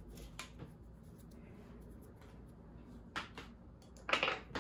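Light handling noises at a workbench: a few soft clicks and a short rustle about four seconds in, as hands move over the opened scooter deck and its wiring.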